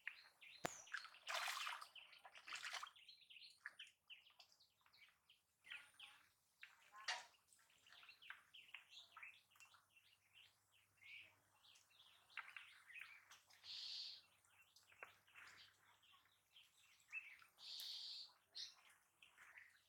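Faint chirping of small birds, many short chirps, with a few soft splashes of water as hands work inside a bamboo polo fish trap set in shallow water.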